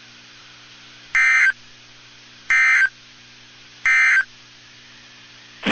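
Weather radio EAS end-of-message code: three short bursts of warbling digital data tones, about a second and a half apart, over a steady low hum from the receiver. The bursts signal the end of the severe thunderstorm warning message.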